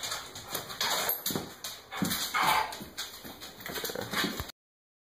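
Yellow Labrador retriever whimpering in short, irregular bursts; the sound cuts off suddenly about four and a half seconds in.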